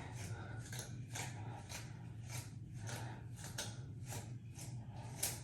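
Hair being cut: crisp cutting strokes about three times a second over a steady low hum.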